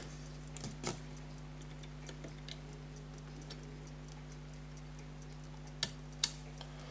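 Faint, irregular little clicks of small hand tools on tiny metal watch parts, with two sharper clicks near the end, over a steady electrical hum.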